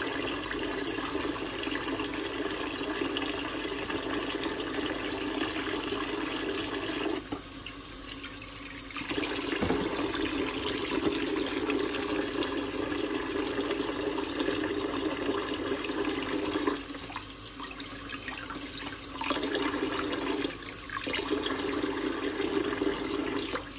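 Kitchen tap running steadily, its stream splashing into a bowl of water in a stainless steel sink. The splashing drops in level and changes tone several times for a second or two, then comes back.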